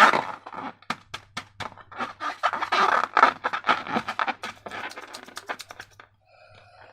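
Sticky slime being squished and worked by hand, a dense run of wet crackles and clicks. Near the end it dies down to a faint short squeak.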